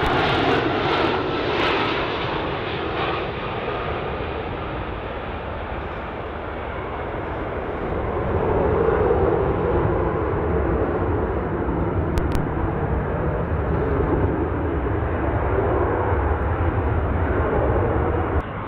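Jet airliner arriving to land: a steady rush of engine noise with a low rumble, easing off for a few seconds and swelling again about eight seconds in.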